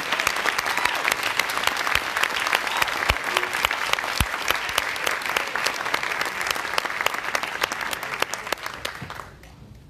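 Audience applauding: dense clapping from a large crowd that dies away quickly about nine seconds in.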